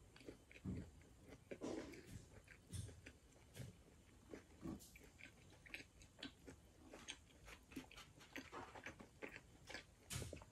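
Quiet, close-up mouth sounds of a person chewing pizza: soft chewing with many small, irregular crunches and clicks.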